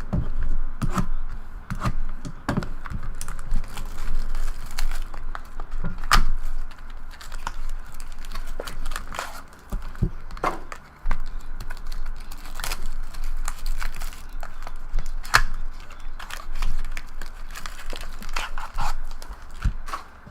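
Trading card packs being torn open, their wrappers crinkling, with many sharp crackles and small taps of handling.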